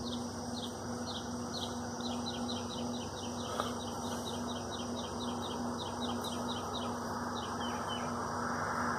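A bird singing a series of short, high, down-slurred chirps that speed up into a fast trill about two seconds in and stop near the end, over a faint steady hum.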